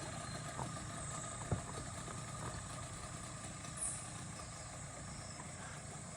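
Boat engine idling with a steady low hum, and a single sharp click about one and a half seconds in.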